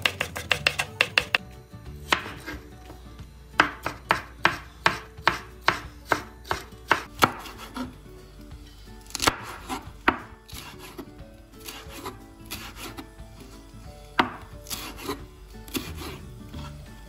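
Chef's knife chopping green bell pepper and a green chili on a wooden cutting board: sharp knocks of the blade against the board, a fast run near the start, a steadier run of about three cuts a second a few seconds in, then fewer, scattered cuts.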